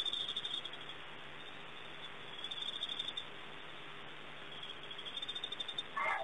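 Crickets chirping in pulsing spells over a steady hiss of night ambience, with a short faint call just before the end.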